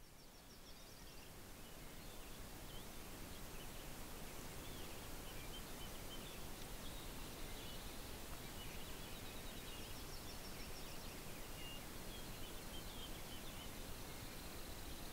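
Lakeside forest ambience fading in over the first few seconds: a steady, even hiss with several small birds chirping and trilling faintly throughout.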